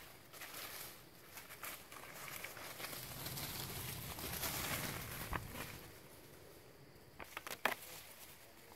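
Rustling and crunching of leaves and twigs that swells over a few seconds and fades, with a sharp snap about five seconds in and a quick run of clicks and snaps near the end.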